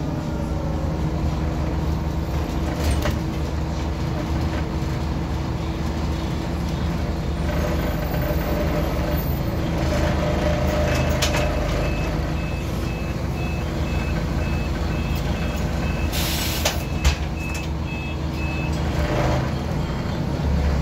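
Scania DC9-17 nine-litre diesel engine of a city bus running, heard from inside the passenger cabin. From about halfway through, a string of evenly spaced high beeps sounds for several seconds, and a short sharp hiss of released compressed air comes about three-quarters of the way in.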